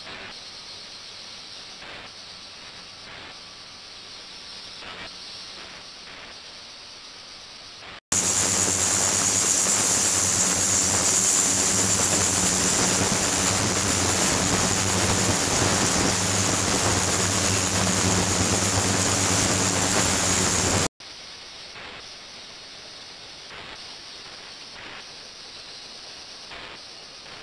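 Steady hissing wash of water in an ultrasonic tank under ultrasonic drive, with water running in through a tube. It jumps abruptly louder and brighter about eight seconds in and drops back just as suddenly near twenty-one seconds.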